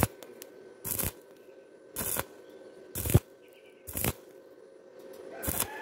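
Stick (arc) welding on thin galvanized steel tube, the arc struck in short crackling bursts about once a second, six in all. The arc is pulsed on and off this way to keep from burning through the thin metal.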